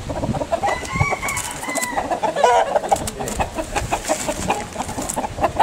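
Chickens clucking and calling, with short pitched calls about a second in and again a second or so later. Light knocks and rattles come from a woven bamboo cage cover as it is handled and lifted.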